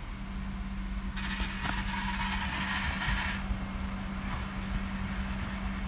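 Skoda Superb 2.0 diesel's EGR valve actuator being driven by a scan-tool active test: a scraping mechanical whir for about two seconds, starting about a second in, over a steady low hum. The mechanic suspects worn gears in the actuator motor.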